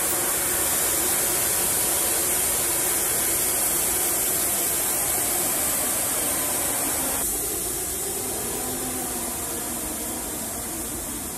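Air being let out of the rear air-ride bags of a 1964 Ford F100: a steady hiss as the truck's rear end settles lower, easing off about seven seconds in.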